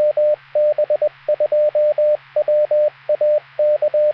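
Radio repeater sending its identification in Morse code: one steady mid-pitched beep keyed on and off in short and long tones, over radio hiss and a low hum.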